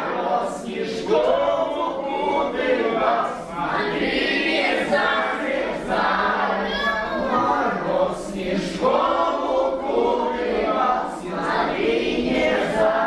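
A group of children singing a song together, with a few adult voices among them.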